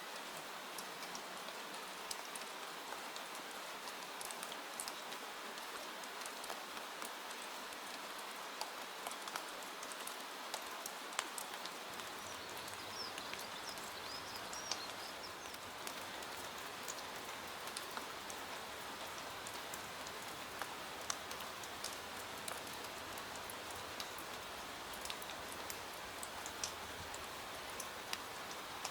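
Steady rain falling, with many scattered sharp ticks of drops or crackles. A faint high warbling call, like a bird, about thirteen seconds in.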